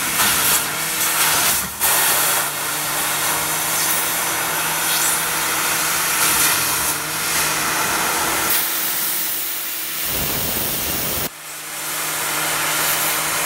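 Fiber laser cutting machine cutting 3 mm stainless steel sheet: a loud, steady hiss of the cutting head's gas jet over a steady machine hum. The hum drops out for a few seconds in the second half, and the sound dips suddenly and builds back near the end.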